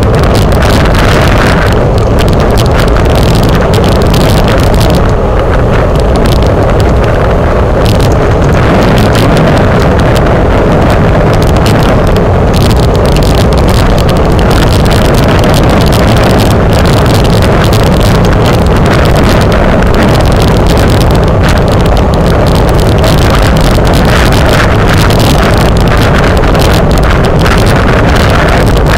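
Wind buffeting the microphone of a camera on a road bicycle moving at racing speed: a loud, steady rush with no let-up.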